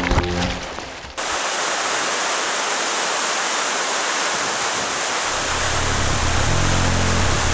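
Steady rush of white water, a hiss-like roar with little bass, cutting in about a second in as background music fades out; low music notes come back under it near the end.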